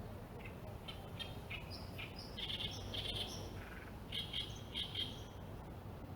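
A small bird chirping: a run of short, high notes, then a second quick cluster of chirps about four seconds in, over a steady low background rumble.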